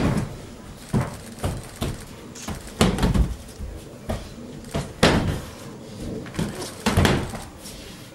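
Aikido breakfalls and footwork on tatami during a demonstration: a series of sudden thumps and slaps as bodies hit the mat and feet strike it, the heaviest about two seconds apart.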